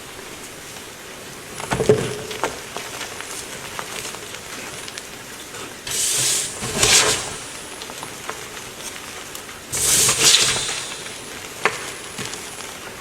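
Close-miked scratchy rustling that comes in three louder bursts over a steady crackling hiss, with a sharp click near the end.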